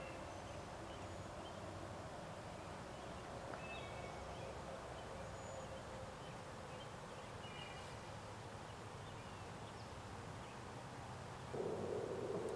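Quiet pond-side outdoor ambience with a few short, scattered bird chirps. Near the end, a louder, steady low noise starts suddenly.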